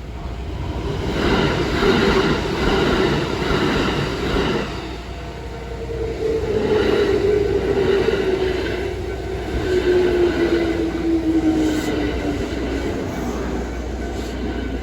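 Kintetsu electric train passing over a level crossing: wheels clatter over the rail joints, then the motors whine, slowly falling in pitch for several seconds.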